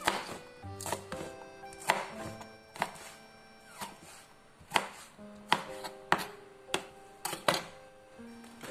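Kitchen knife slicing chillies on a plastic cutting board: about a dozen sharp knocks of the blade on the board, spaced unevenly at roughly one a second, over faint background music.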